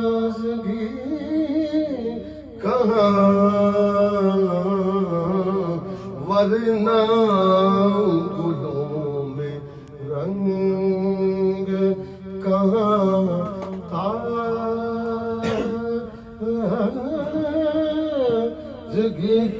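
A man singing an Urdu naat, a devotional praise poem, unaccompanied into a microphone. He holds long, wavering notes in phrases a few seconds long, over a steady low drone.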